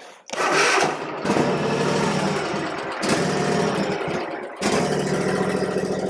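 Husqvarna Z254 zero-turn mower's engine starting about a third of a second in and then running steadily, with a few sudden breaks in the sound.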